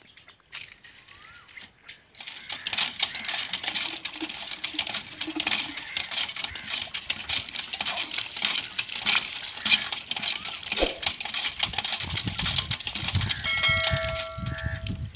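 Water from a hand pump gushing and splashing over a man bathing under the spout as he works the pump handle. It starts about two seconds in, and heavier low thuds join it later on. Near the end there is a short bell-like chime from a subscribe-button sound effect.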